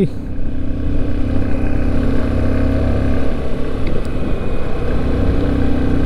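Motorcycle engine running steadily at cruising speed, with a low rush of wind over the microphone.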